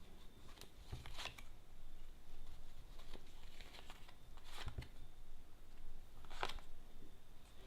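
Tarot cards being handled and laid out on a table: several soft, short swishes and slaps of card on card, spread out with pauses between them.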